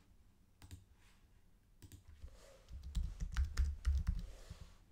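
Typing on a computer keyboard: a few isolated key clicks, then a quick run of keystrokes about halfway through.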